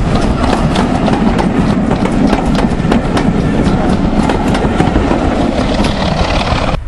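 Heritage railway passenger coaches rolling past at close range: a steady rumble of wheels on the rails, with frequent sharp clicks and clatter from the wheels on the track. The sound cuts off suddenly near the end.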